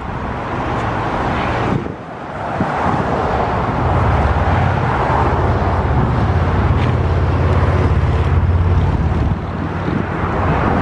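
Road traffic on a busy street: a steady wash of passing cars, with a deep low rumble from about four to nine seconds in.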